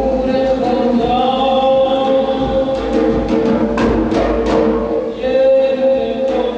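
Music with held notes and singing voices, with several sharp percussion strokes around the middle.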